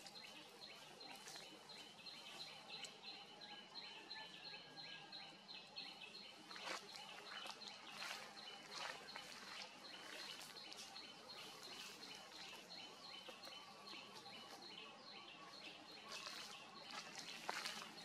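Faint outdoor tree-canopy ambience: a short high chirp repeating evenly a couple of times a second, with scattered clicks and rustles.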